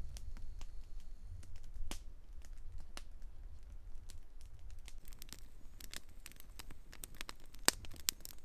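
Wood campfire of sticks and a log crackling, with irregular sharp pops and snaps that come more often in the second half, over a low rumble that fades after a few seconds.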